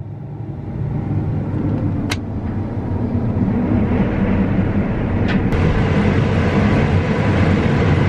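A John Deere S-series combine running as its corn head feeds into standing corn. The steady machine hum grows louder over the first few seconds, then holds steady, with two short clicks, one about two seconds in and one about five seconds in.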